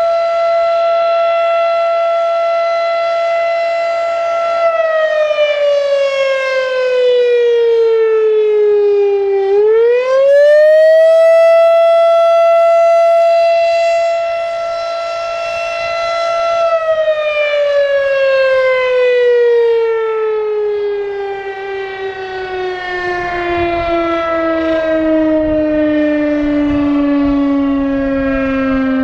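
Federal Signal RSH-10 Thunderbeam electromechanical outdoor warning siren. It holds a steady tone, drops in pitch about five seconds in, and winds back up to the same tone about ten seconds in. About seventeen seconds in it starts a long, slow wind-down. Wind buffets the microphone in the last few seconds.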